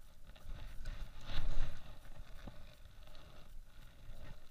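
Water sloshing against a kayak hull and wind on the microphone, with a louder rush about a second in and a faint click a little later.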